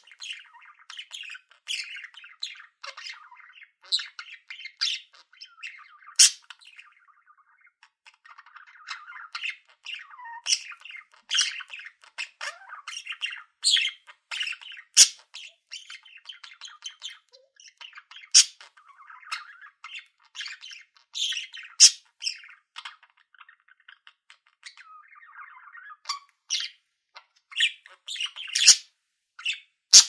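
Budgerigars chattering: a dense, continuous run of short chirps and sharp squawks, with softer warbling chatter between them.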